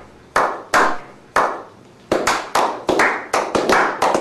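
A slow clap by a small group of people: single hand claps spaced about half a second apart, quickening after about two seconds into faster clapping at about four to five claps a second.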